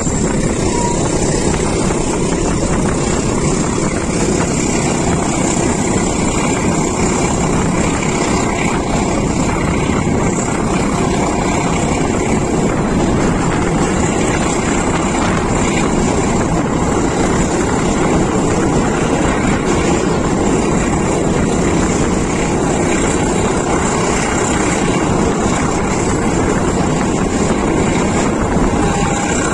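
Steady running noise of a passenger train heard from an open carriage door: wheels and carriages rumbling along the rails, with wind rushing over the microphone.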